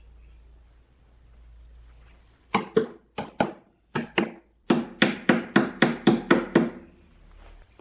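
Hammer striking wood, about fourteen sharp, ringing blows: a few spaced pairs, then a steady run of about four blows a second that stops suddenly.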